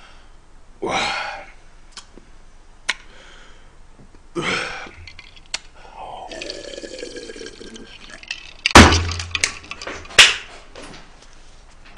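A person drinking from a glass with breathy exhales, then, near the end, several sharp knocks and hand claps: the glass set down on the table and the loudest of the knocks.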